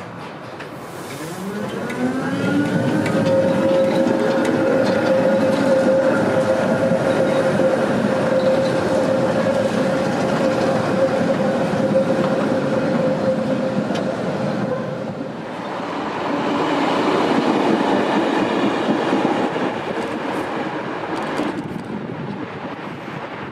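Tatra T4D tram pulling away: its electric traction motors whine, rising in pitch over the first couple of seconds and then holding a steady tone, over the running noise of steel wheels on rail. After a short dip the tram noise swells again, then drops suddenly to a quieter background shortly before the end.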